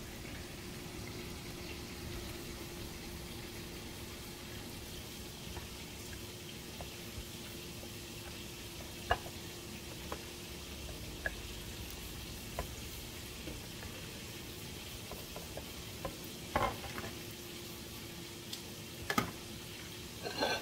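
Oil frying with a steady sizzle and a faint steady hum under it. A few light clicks and knocks come in, the sharpest about nine seconds in and again near the end.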